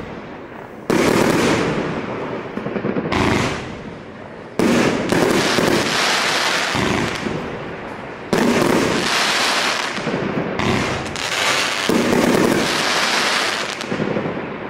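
Firework cake firing a continuous barrage of aerial bursts, one volley overlapping the next with no pause. Sudden loud new volleys come in about a second, four and a half seconds and eight seconds in.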